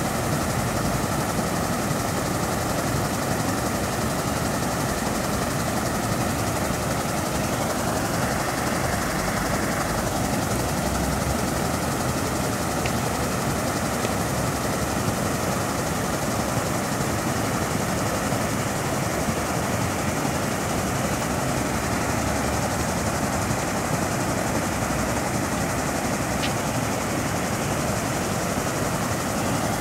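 Water falling in a continuous sheet over a long wall into a pool, a steady rushing.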